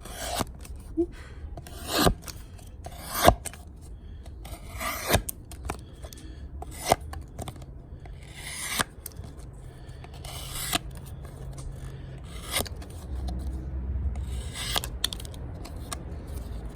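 A sharp fixed-blade knife slicing through cardboard in about ten short rasping cuts, roughly one every two seconds.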